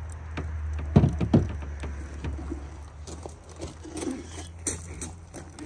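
Cooking utensils knocking and tapping, two sharp knocks about a second in and lighter clicks after, over a steady low rumble.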